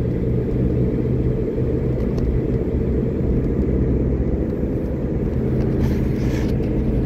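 Steady road noise inside a moving car: the engine and tyres running on a wet road, a low even rumble. A brief soft hiss about six seconds in.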